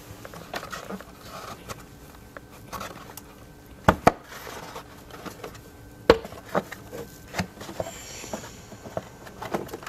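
Hard plastic clicks and knocks as a BMW i8's engine cover and oil filler cap are worked loose by hand. There is a pair of sharp clicks about four seconds in and a louder one about six seconds in, with quieter handling rattles and ticks between.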